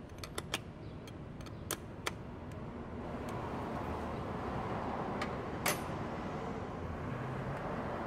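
Sharp metal clicks of a wrench working the nut on a brass battery-terminal clamp in the first couple of seconds. Then a steady rushing noise swells in, with one more sharp click partway through.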